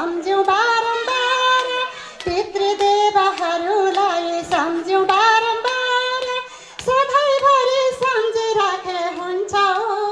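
A woman singing a devotional song into a handheld microphone, her voice amplified through a sound system. She holds and bends long melodic notes in phrases, with brief breaks for breath.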